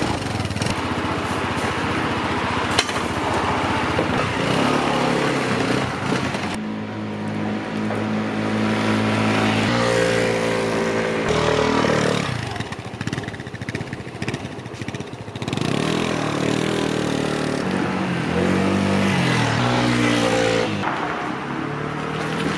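Honda SH150 scooter's single-cylinder four-stroke engine running and riding, its pitch stepping up and down several times and rising and falling as it revs.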